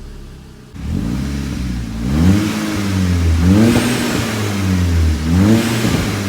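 Seat Leon Cupra's 2.0-litre turbocharged four-cylinder engine revved up three times, with crackles and pops from the exhaust at the top of the revs. This comes from a tuned MED9.1 2-step launch-control and overrun crackle map.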